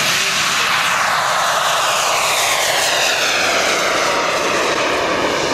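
Four model jet turbines of a giant-scale RC Avro Vulcan running at take-off as it lifts off and climbs past. A loud roar is topped by a high whine that falls in pitch as the aircraft goes by.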